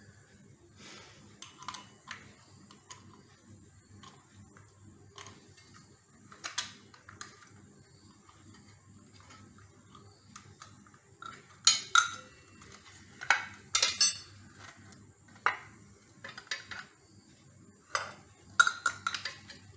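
Metal clinks and knocks from handling a circular saw's blade, spindle and blade wrench while the blade is fitted, with louder clanks about twelve to fourteen seconds in and again near the end.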